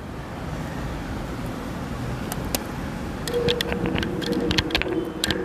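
Steady low background rumble, with a faint hum joining about halfway and scattered sharp clicks and rattles in the second half.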